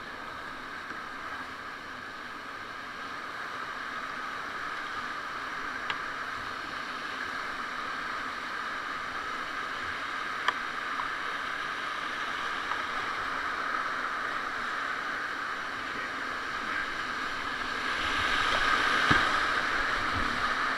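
Whitewater rapids rushing around an open canoe, a steady rush of water that slowly grows louder and is loudest near the end as the canoe drops into the rapid. A couple of sharp clicks sound over the water.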